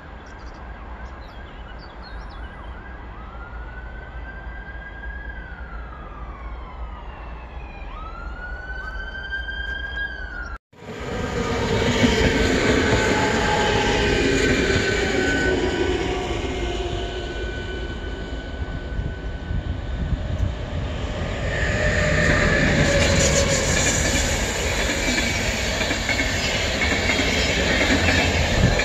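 A siren wails in the distance, rising and falling several times over a low hum. Then, after an abrupt cut, a RegioJet locomotive-hauled passenger train passes close by: loud rushing rail noise with steady high ringing tones, swelling again near the end.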